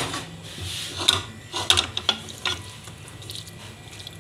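Wooden spatula stirring and scraping chunks of mutton in masala around an aluminium kadhai, in irregular strokes about a second apart. A faint sizzle of the meat frying down in the bhuna stage sits under the strokes.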